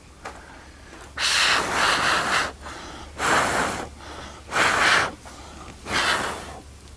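Four hard, breathy exhalations or puffs of air, the first the longest and the others shorter and about a second apart.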